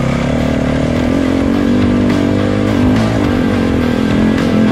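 Honda CRF250RX dirt bike's single-cylinder four-stroke engine running as the bike is ridden, held at fairly steady revs.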